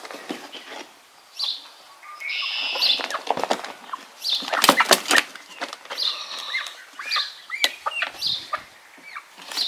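A hen flapping her wings and scrabbling inside a plastic pet carrier as she is pulled out, with repeated knocks and scrapes against the plastic and a few short calls in the second half.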